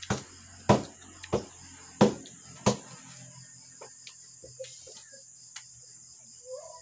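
Crickets chirring steadily in a night insect chorus, with five loud, sharp clicks in the first three seconds and a few fainter ticks after. A child's wailing cry starts just before the end.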